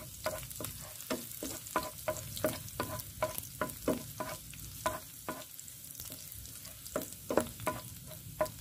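Chopped garlic frying in hot oil in a pan with a faint sizzle, browning for garlic fried rice. A utensil stirs it, scraping and knocking against the pan about three times a second, with a short pause a little past the middle.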